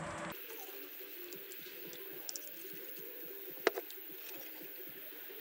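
Small clicks and clinks of tableware being handled on a camp table, with a pair of light clinks just before halfway and one sharper clink a little after.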